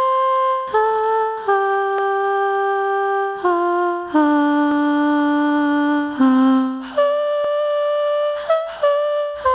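Background music: a slow solo melody of long held notes that steps down in pitch over several notes, then jumps back up about seven seconds in.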